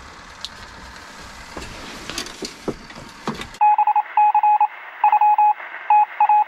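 Faint rustling and clicks, then a little past halfway a burst of rapid electronic beeping: one steady tone switching on and off in quick groups.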